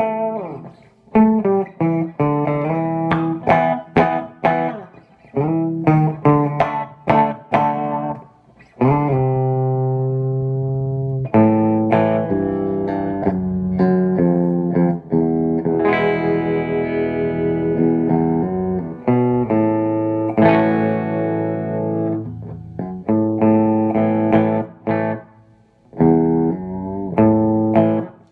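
Electric guitar with a Seymour Duncan JB humbucker played through a JTM50-style valve amp, noodling: quick runs of picked notes, then longer ringing chords and phrases after a short pause about eight seconds in.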